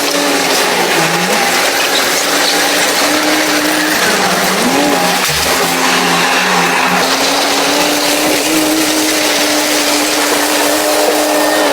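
Excavator's diesel engine running steadily under work, its pitch dipping and recovering a couple of times.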